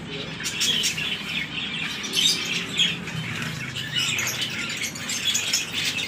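A flock of caged zebra finches calling: many short, high chirps overlapping without a break.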